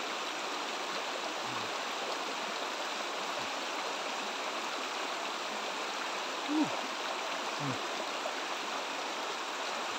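Shallow rocky stream running over stones: a steady, even rush of water. A few short low voice sounds break in, the loudest about six and a half seconds in.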